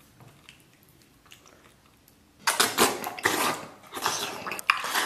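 A man eating noisily close to the microphone: loud, wet slurping and chewing of sauced noodles, starting about two and a half seconds in. Before that there are only a few faint soft clicks.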